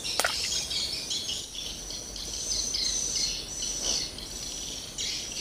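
A steady chorus of insects and birds chirping high-pitched, in quick short repeated notes. A sharp click sounds just after the start, and a fainter one about four seconds in.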